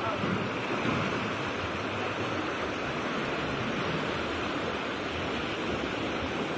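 Floodwater rushing in a fast, muddy torrent down a street, a steady rushing noise that does not let up.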